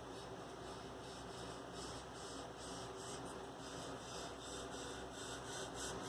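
Faint steady hiss with a low electrical hum underneath and no distinct event.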